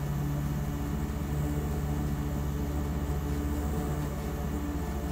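Steady low mechanical hum with no speech.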